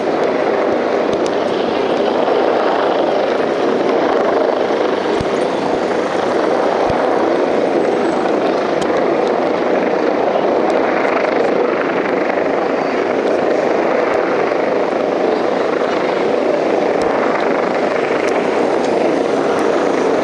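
Police helicopter flying overhead: a loud, steady rotor and turbine noise that holds level throughout.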